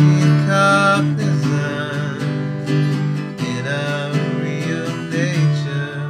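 Acoustic guitar strummed, its chords ringing on as the song's instrumental ending, growing gradually quieter.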